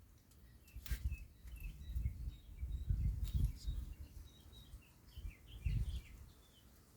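Small birds chirping in many short rising and falling notes, over intermittent low rumbling noise, with a sharp click about a second in and another about three seconds in.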